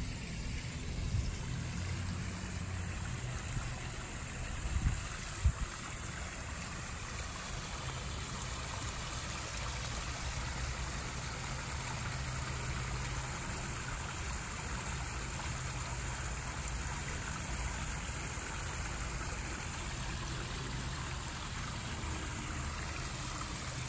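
Backyard koi pond's rock waterfall trickling and splashing steadily, with a brief thump about five seconds in.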